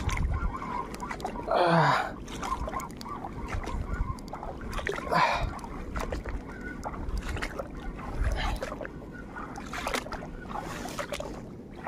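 Small fishing boat on the water: knocks, clatter and water movement as the boat is worked, over low rumbling thumps. Two short voice calls come about two and five seconds in.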